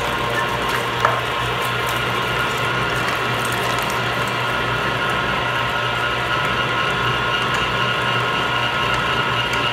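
Electric stainless-steel meat grinder running steadily under load, grinding chicken and vegetables through its cutting plate, with a constant motor hum. One brief knock about a second in.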